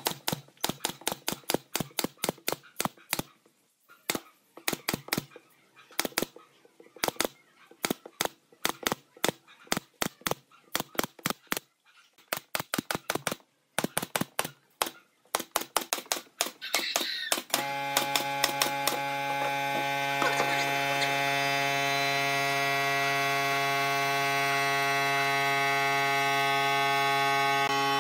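Pneumatic brad nailer firing brads into pine slats, sharp clacks in quick runs of several shots a second with short pauses. About two-thirds of the way in the shots stop, and a loud, steady hum at an unchanging pitch takes over.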